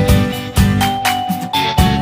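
Upbeat instrumental background music with a steady beat, about two beats a second, under a melody of held notes.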